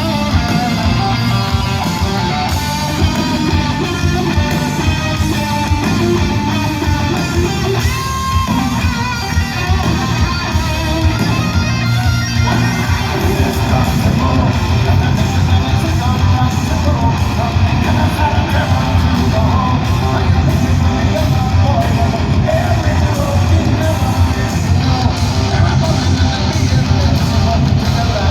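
Live heavy metal band playing loud, with strummed electric guitar over a steady pounding low end.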